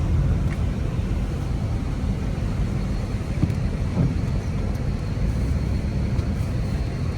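Car driving on a snowy road: a steady low engine and road rumble with no clear change.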